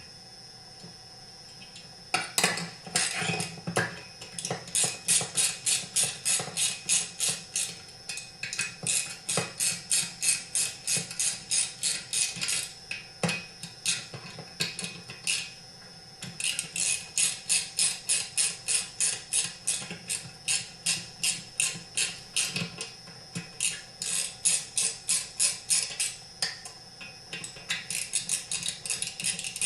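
A ratchet clicking in quick, even strokes, about three or four a second, as screws are tightened down. It pauses for a couple of seconds partway through and then carries on.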